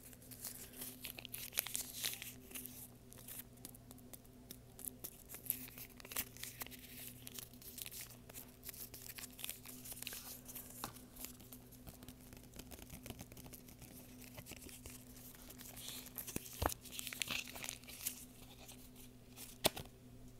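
Close-up handling of a deck of playing cards and its card box: dense crinkly scratching, rustling and tapping, with a few sharper clicks near the end, over a faint steady hum.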